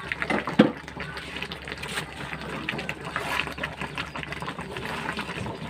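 Sticky sugar syrup boiling in a metal wok around rice-flour dumplings, popping in a busy run of small clicks while a spatula stirs and scrapes through it. There is a louder knock about half a second in.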